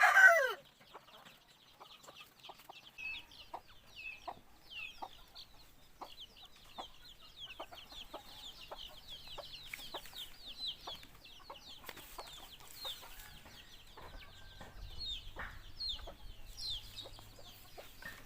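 Birds chirping and peeping rapidly in a dense, high-pitched run of short falling notes, with scattered soft clicks.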